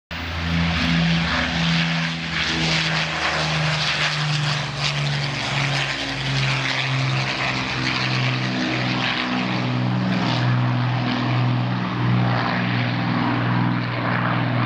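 de Havilland Mosquito's twin Rolls-Royce Merlin V12 engines running as the aircraft flies past and away, a steady propeller-engine roar whose note drops lower about five seconds in.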